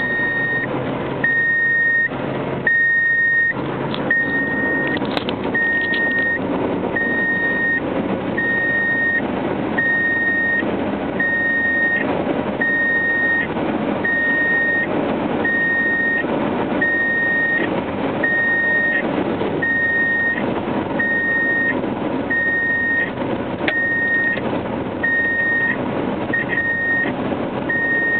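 1997 Subaru Legacy's dashboard warning buzzer beeping on its own while driving: one high tone, on and off about once a second, without stopping, over road and engine noise inside the cabin. It is a fault that the owner has not traced; the door position sensors are ruled out.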